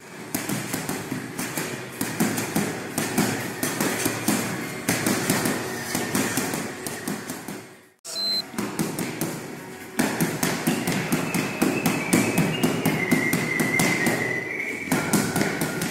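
Boxing gloves striking a wall-mounted punching pad in rapid flurries, several dull thuds a second, breaking off briefly about eight seconds in.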